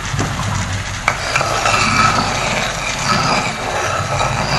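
Chicken pieces in spice paste and water bubbling and sizzling in a pan, over a steady low hum, with a single click about a second in.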